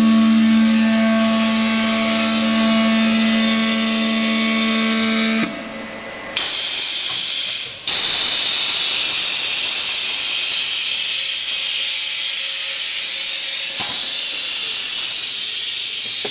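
A steady machine hum for about the first five seconds, then the MIG welding arc of an automated circumferential welder hissing steadily as it runs a seam on a gas cylinder. The hiss breaks off and starts again abruptly a couple of times.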